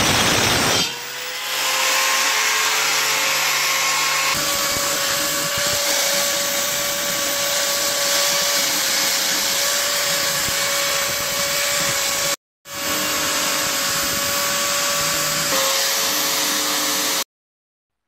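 Angle grinder grinding rust off a steel pedestal-fan base, then a power tool spinning a wire brush against the rusty oscillation gearbox housing: a steady motor whine over scraping hiss that cuts off abruptly near the end.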